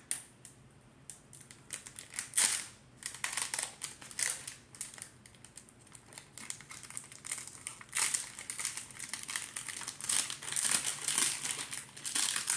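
Foil wrapper of a Pokémon card pack crinkling as it is handled and opened by hand, in irregular crackles that get busier in the second half.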